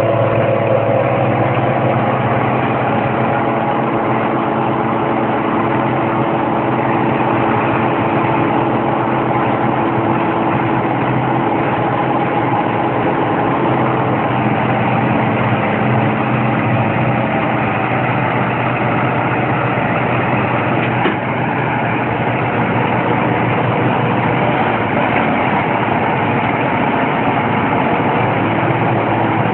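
Zetor tractors' diesel engines running at steady revs.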